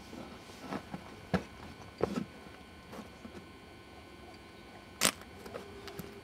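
Camcorder handling noise: irregular sharp clicks and knocks, about six of them, the loudest about five seconds in. A faint short hum comes in near the end.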